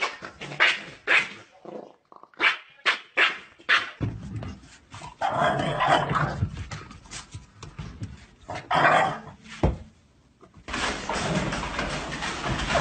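A dog barking: a quick string of short barks in the first few seconds, then further barks among busier sound.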